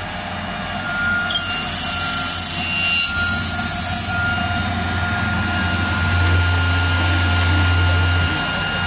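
Milling cutter slotting an aluminium profile: a machine's steady hum and whine, with a high screech of the cutter in the metal from about one second in to about four seconds.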